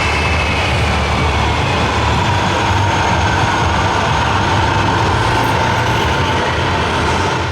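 Radio-controlled model truck running: a steady low engine-like rumble with a whine that slowly falls in pitch.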